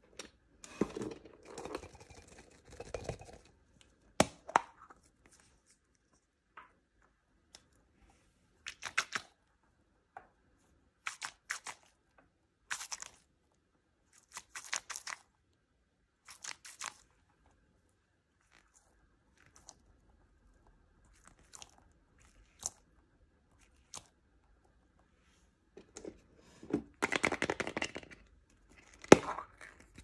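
Hands tearing open and crinkling plastic toy packaging. There is rustling at the start, then a sharp click, a few short crinkles and a quiet stretch. Near the end comes a louder burst of tearing and crinkling, ending in another sharp click.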